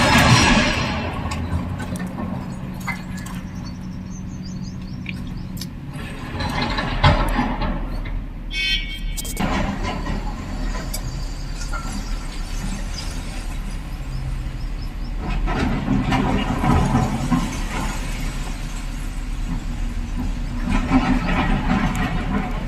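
Excavator at work: a steady diesel engine drone with squeals, swelling louder several times as the machine works.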